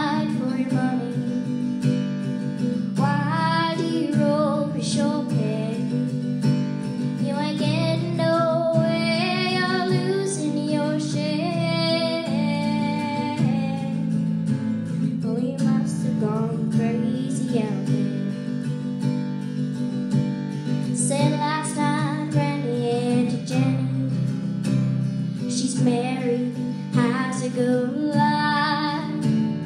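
A young woman singing a cowboy ballad while playing an acoustic guitar.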